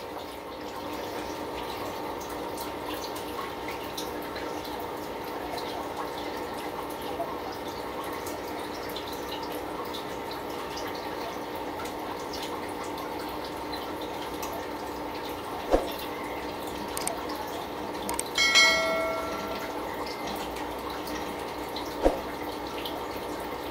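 Steady water trickle and hum of aquarium filtration and aeration, while a plastic mesh tank divider is lifted out of the water. There are a couple of sharp knocks and, about three-quarters of the way through, a short pitched squeak, the loudest sound.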